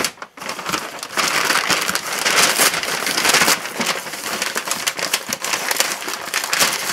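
Crinkling and rustling of a USPS mailer envelope as hands pull it open and dig through it, a dense run of crackles that is loudest in the middle.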